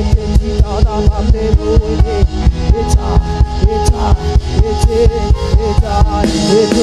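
Background music: a fast, steady drum beat under sustained synth chords and a wavering melody, the beat dropping out near the end.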